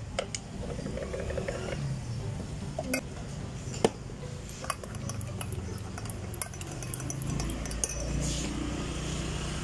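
A metal spoon clinking against a glass measuring jug a few separate times as cocoa powder is worked into espresso, over a steady low rumble.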